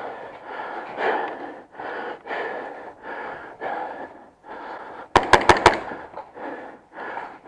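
Heavy, rhythmic breathing close to the microphone from a player on the move. About five seconds in, an airsoft gun fires a quick burst of about five shots, the loudest sound.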